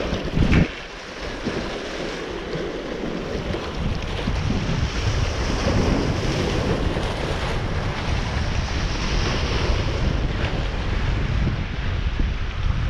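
Wind buffeting the microphone with a steady rush of water beneath it, and a brief loud bump about half a second in.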